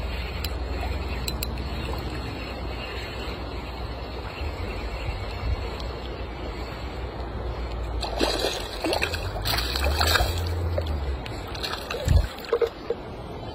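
Wind rumbling on the microphone, with a small hooked fish splashing at the water's surface for a few seconds past the middle as it is reeled in. A couple of low thumps near the end.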